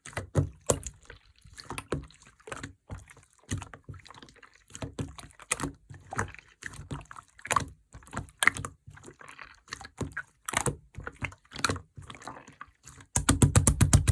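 Light-blue clear slime being squished and pressed by hand, giving irregular wet clicks and pops. About a second before the end it breaks into a fast, louder run of clicks.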